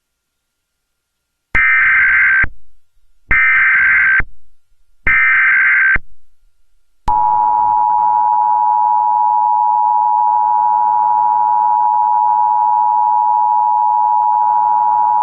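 Emergency Alert System tones: three one-second screeches of digital data (the SAME header that encodes the alert), then, about seven seconds in, the steady two-tone attention signal, held for about eight seconds, that comes before the spoken tornado warning.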